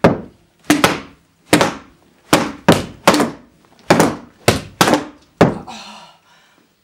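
Repeated hard blows of a white flexible tube beaten down onto mattresses: about a dozen sharp whacks, many in quick pairs, stopping about five and a half seconds in.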